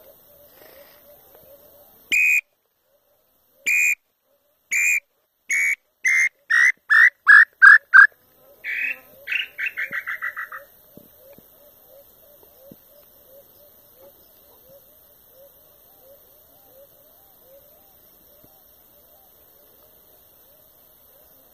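Tinamou call whistle blown to imitate the nambu-pé-roxo's song: about eleven clear whistled notes that start slow, speed up, grow louder and fall in pitch. A second, quieter and quicker falling run of notes follows.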